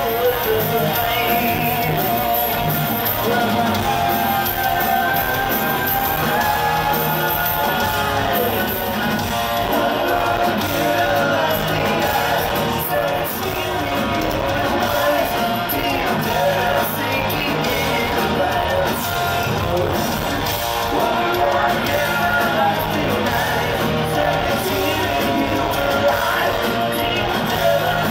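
Heavy metal band playing live in a large hall, heard from the audience: distorted electric guitars and drums with a singing voice, and the crowd shouting along.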